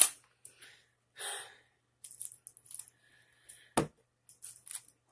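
Thin plastic straw wrapper crinkling and rustling as a straw is peeled off a drink box, in short scattered crackles, with one sharp snap a little before the end.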